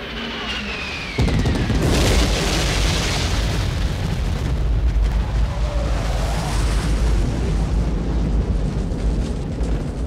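Napalm bombs exploding along a tree line in a film battle scene. A falling whine is followed, about a second in, by a heavy blast whose deep rumble carries on without a break.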